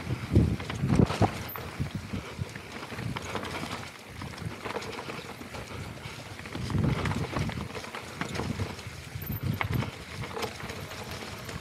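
Mountain bike descending a rocky dirt trail: tyres rolling and crunching over stones and leaf litter, with the bike clattering and knocking irregularly as it hits rocks, heaviest about a second in and again around seven seconds.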